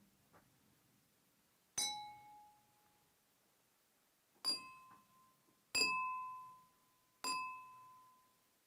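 Four separate ringing clinks, struck one at a time a second or more apart; the first is a little lower in pitch than the other three, and each rings on for a second or more before fading.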